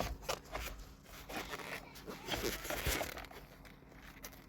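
Hands working plastic airbag wiring connectors and clips into place: irregular rustling, scraping and small clicks that die down over the last second or so.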